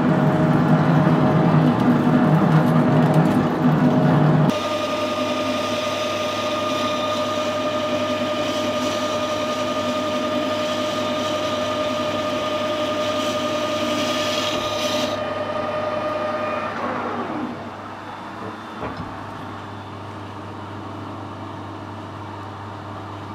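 Metal lathe drilling a steel bar with a large twist drill: a loud, rough grinding noise. After a sudden change about four seconds in, the lathe runs with a steady whine while boring the hole. The whine falls in pitch as the spindle winds down about 17 seconds in, leaving a low steady hum.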